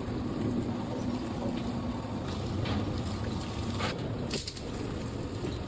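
Steady low hum of factory machinery running, with a few faint clicks.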